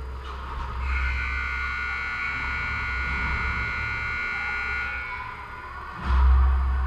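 A held buzzer tone of several pitches, steady for about four seconds, over a low rumble; about six seconds in, a dull, loud thump.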